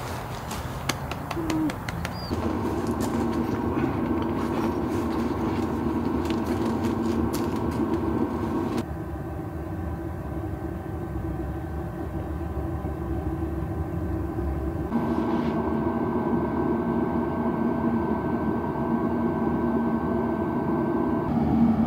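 Car driving: a steady engine drone over low road rumble, with a few clicks in the first couple of seconds. The drone changes abruptly twice.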